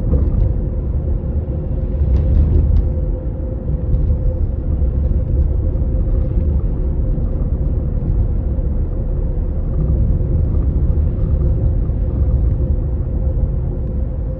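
Toyota Estima ACR55W running with a steady low rumble and a constant hum, with a few light clicks about two seconds in. It is the abnormal noise of a loosened intermediate shaft No.2.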